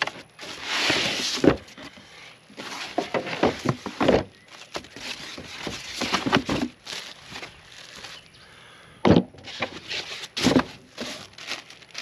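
Plastic bag and packing material crinkling and rustling as they are pulled from a cardboard box, with several sharp knocks of handling, the loudest about nine seconds in.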